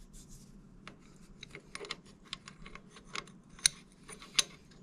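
Light clicks and taps of a small bronze cylinder head and a steel parallel bar being handled against the jaws of a lathe's three-jaw chuck, irregular, with two sharper clicks in the last second and a half.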